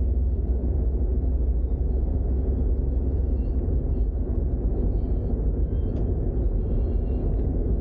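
Steady low rumble of a Toyota GR86 on the move: road and engine noise at an even pace.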